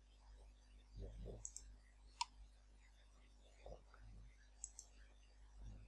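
A few faint computer mouse clicks, some in quick press-and-release pairs: a pair about one and a half seconds in, a sharper single click just after two seconds, and another pair near the end.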